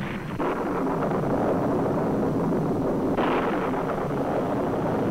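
Dubbed storm-and-eruption sound effect on an old newsreel soundtrack: a dense, steady rushing noise with no music, growing brighter about three seconds in.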